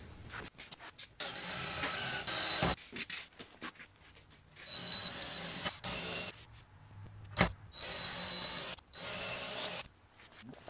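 Power drill running in four short start-stop bursts with a steady high whine, drilling a clearance hole through a sheet-metal panel. A single sharp click comes about seven seconds in.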